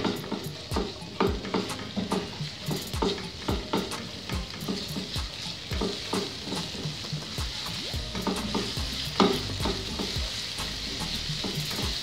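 Chopped garlic sizzling in oil in a nonstick frying pan while a spatula stirs it, with many short taps and scrapes of the spatula against the pan and one louder knock about nine seconds in.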